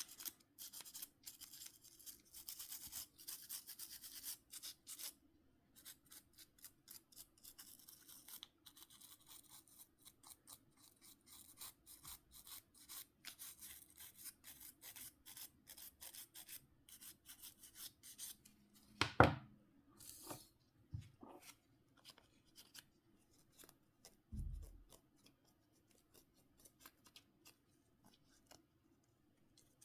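Small hand tools working over a Nokia C5-00 phone's parts: rapid scratching and rubbing strokes, heaviest at first, with scattered small ticks. There is a sharp knock a little past the middle and a duller thump a few seconds later.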